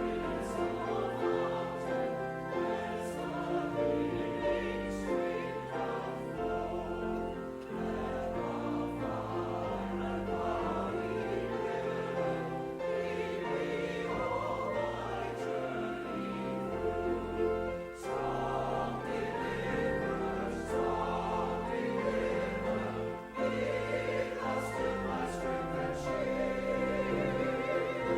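Church choir singing with keyboard accompaniment, a sustained hymn or anthem.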